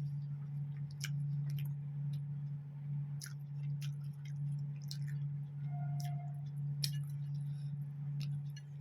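A steady low hum, with scattered small clicks and smacks of someone eating and chewing.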